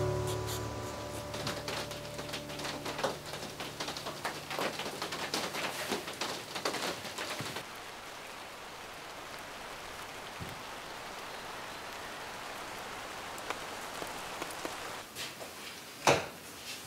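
Rain falling, with many separate drops hitting close by for the first several seconds, then an even hiss of rain. A single sharp knock comes near the end.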